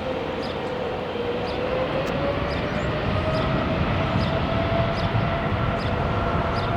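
Jet airliner engines: a broad roar with a steady whine that slowly climbs in pitch and grows a little louder.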